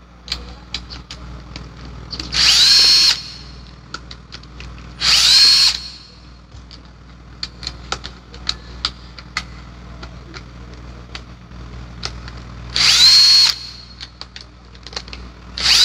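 Cordless drill-driver backing out the housing screws of a rotary hammer. It runs in three short bursts, each a whine that rises as the motor spins up and then holds, and a fourth burst starts at the very end. Small clicks and knocks from the screws and the handling of the tools fall between the bursts.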